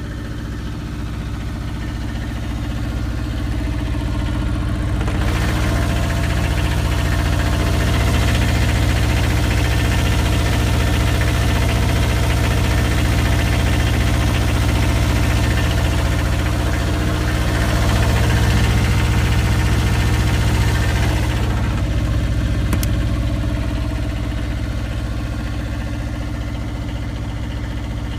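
Perkins 402D-05 two-cylinder, half-litre liquid-cooled diesel in an Aurora 4 kW generator, running steadily at 1800 RPM with little knock. It stands raised on its feet, which makes it a little noisier. The sound grows clearly louder and hissier from about five seconds in and drops back about twenty seconds in.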